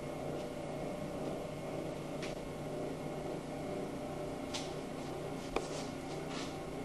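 A steady machine hum, with a few brief faint scrapes and one sharp click about five and a half seconds in.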